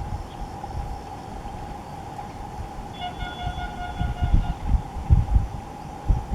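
Wind buffeting the microphone in low gusts, louder in the second half, over a faint steady high hum. About three seconds in, a single held, buzzy, horn-like tone sounds for about a second and a half and then stops.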